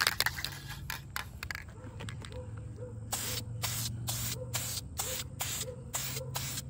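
Aerosol spray paint can hissing in short, quick bursts, about three a second, starting about three seconds in. This is light passes with the nozzle rather than one long spray, the way to avoid runs.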